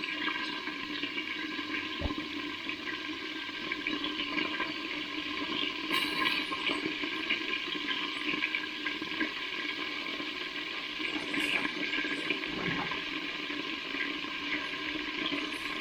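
Chicken frying in hot oil: a steady sizzle with small scattered crackles and pops.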